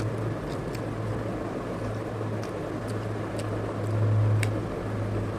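Steady low hum in the room, swelling briefly about four seconds in, with a few faint clicks of a man chewing roasted chicken.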